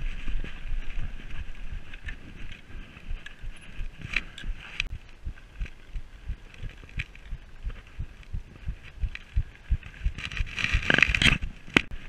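Mountain bike riding over rough grass and a dirt track, picked up by an action camera on the rider. Irregular low knocks and rattles come from the bumps, over a steady hiss of wind and tyres. A louder rattling burst comes near the end.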